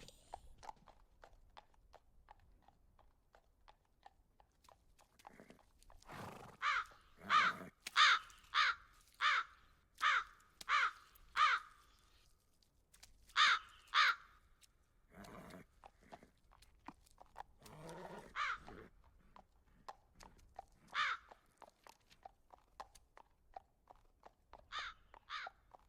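A crow cawing: a run of about eight evenly spaced caws, then two more and a few single caws, over the faint, regular clip-clop of a horse's hooves.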